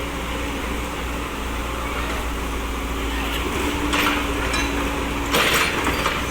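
Excavator engine running steadily, with short noisy bursts about four and five and a half seconds in.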